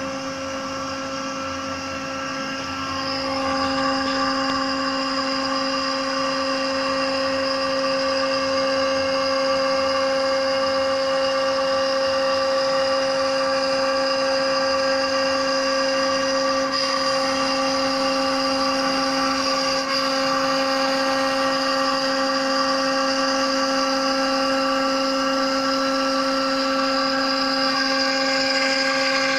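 CNC router spindle running with a steady high whine while milling 8 mm PVC plastic sheet, with cutting noise under it. It grows louder about three seconds in.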